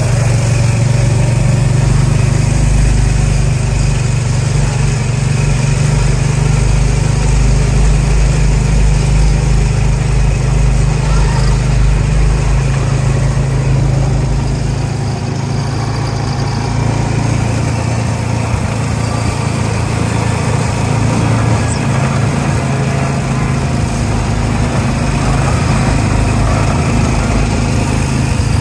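A small engine running steadily with a low hum. Its deeper throb eases about halfway through.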